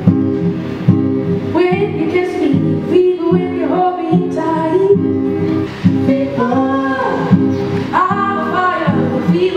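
A woman singing live, sliding between notes, accompanied by acoustic guitar.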